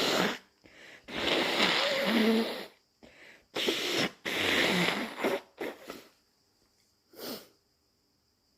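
A person sneezing hard and wetly, over and over: a run of loud, noisy bursts with breaths between, ending with a shorter, quieter one about seven seconds in.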